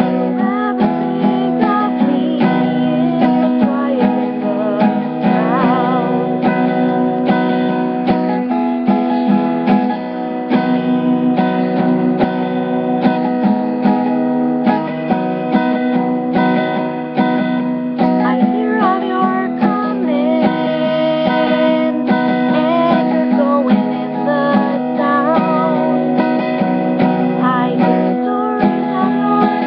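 Steel-string acoustic guitar, capoed up the neck, strummed steadily, with a woman singing along in places.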